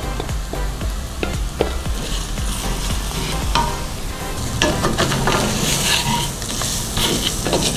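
Ground spices and bay leaves frying in oil with onions, ginger and garlic in a stainless steel pot, sizzling steadily. A wooden spatula stirs and scrapes against the pan, making frequent short scrapes and clicks.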